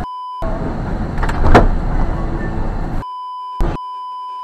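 A steady censor bleep, then in-vehicle road noise on a wet road with a loud bang about a second and a half in as a car crashes ahead. Two more censor bleeps come near the end, split by a brief burst of sound.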